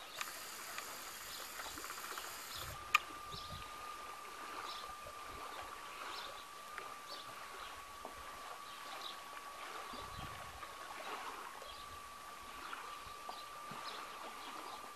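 Quiet dawn ambience by open water: scattered short bird chirps over a faint, steady high-pitched whine, with a single sharp click about three seconds in.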